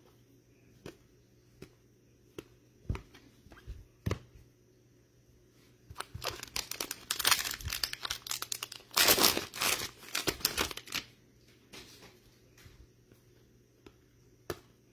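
A 2022 Select Draft Picks football card pack's foil wrapper being torn open and crinkled for about five seconds in the middle, loudest near the end of the tearing. Before it come a few light taps and clicks of cards being handled.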